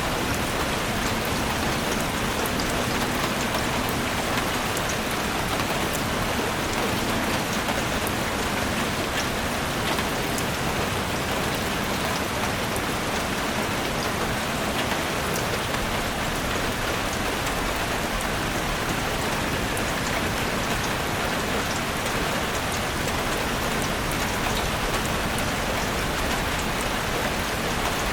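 Steady rain falling on forest foliage and ground, a dense even hiss with many small drop ticks and no let-up.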